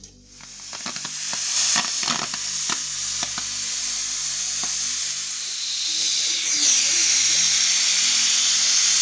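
Aluminium stovetop pressure cooker whistling: steam rushes out under its lifted weight valve as built-up pressure releases. It is a loud hiss that swells over the first second or two, with rattling clicks from the weight in the first few seconds. It stops abruptly at the very end.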